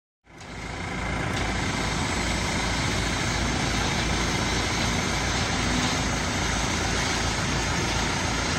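Farm tractor's diesel engine running steadily under load, fading in shortly after the start.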